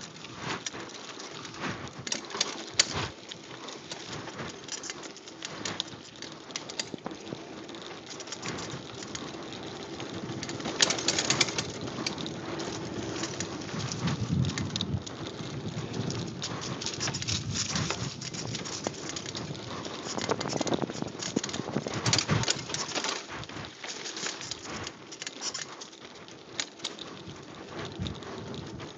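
Mountain bike descending a dirt singletrack at speed: tyres crunching over dirt and leaves, the bike rattling over bumps with many sharp knocks at uneven spacing, over a steady low hum.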